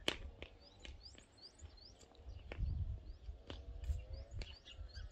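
Small birds chirping in short, quick rising notes, with scattered sharp clicks and a low rumble underneath.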